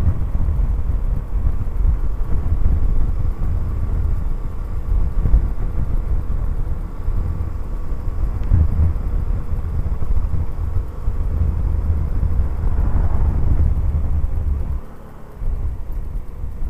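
Honda C90 Cub's small four-stroke single-cylinder engine running as the bike is ridden, under a steady low rumble of wind on the microphone. The noise drops sharply about fifteen seconds in.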